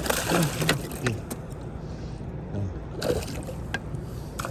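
Boat motor running steadily with a low rumble, a voice briefly at the start and a few light clicks over it.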